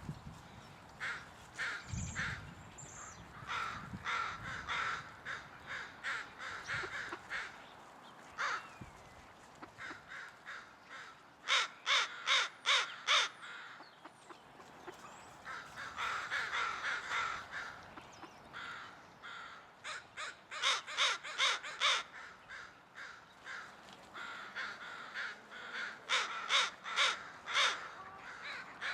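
A large flock of American crows cawing, many calls overlapping without pause, with three runs of four or five loud caws in quick succession: a little before the middle, about two-thirds through, and near the end.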